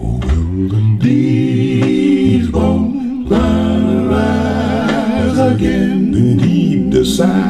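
Vocal music played back over large floor-standing hi-fi loudspeakers: voices singing long held notes over a deep bass.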